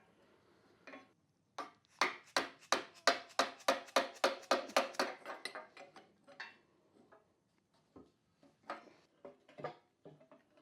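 A 7/8 wrench working a hydraulic line fitting loose on a lift's hydraulic cylinder, metal on metal. About a second and a half in comes a quick even run of sharp clicks, about four a second for some three seconds, followed by a few scattered clicks.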